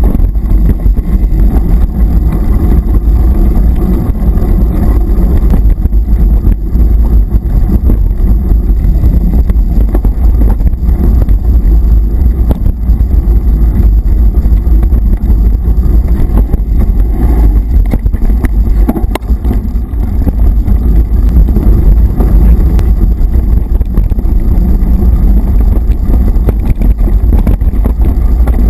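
Mountain bike ridden fast over a dirt forest trail: a loud, steady low rumble of wind on the camera microphone, with frequent small knocks and rattles from the bike jolting over the ground.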